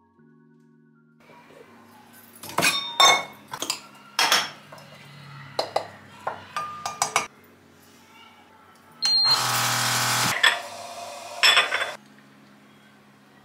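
Dishes and glassware clinking and knocking as they are handled and set down, in several clusters of sharp clinks. About nine seconds in there is a short, loud rush of noise lasting about a second.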